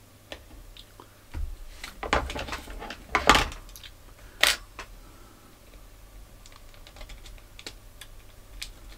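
Plastic cassette shell being handled and worked in the fingers: a run of irregular clicks and light knocks, the loudest about three and four and a half seconds in, then sparser small clicks.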